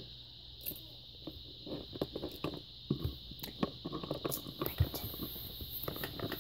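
Small plastic Littlest Pet Shop figurines and a toy shopping basket handled on a tabletop: scattered light clicks and taps, irregular, over a steady faint hiss.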